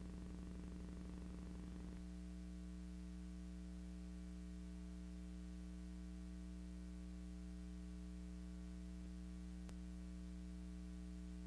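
Steady low electrical hum with faint hiss and no other sound; the hum grows slightly cleaner about two seconds in, and there is one faint click near the end.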